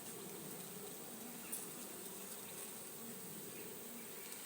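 Honeybee colony in an opened poly nuc hive, buzzing in a soft, steady hum.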